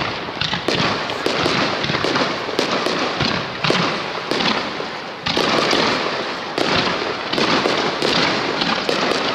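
Starmine fireworks: a rapid barrage of small aerial shells launching and bursting, with sharp bangs following one another about every half second and overlapping into a continuous rumble.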